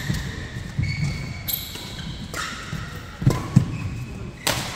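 Badminton play: rackets hitting the shuttlecock with sharp knocks, the loudest near the end, among the thud of footsteps and brief high squeaks of sneakers on the court mat.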